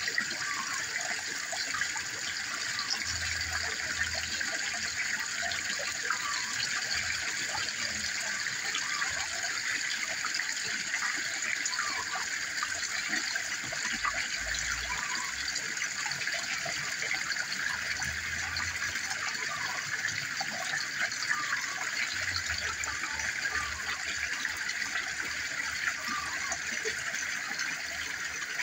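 A small garden pond waterfall, with water running over rocks and splashing steadily into the pond, a bright even splashing with small droplet splashes scattered through it.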